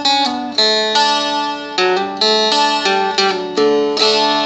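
Seagull Merlin, a small fretted dulcimer-style string instrument, played as a picked melody. About eight notes ring and fade over open strings that keep sounding underneath.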